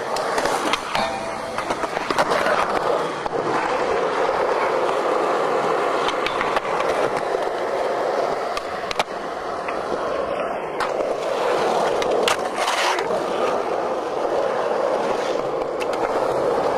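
Skateboard wheels rolling on smooth skatepark concrete, a steady rolling noise, with a few sharp clacks of the board and trucks hitting scattered through it.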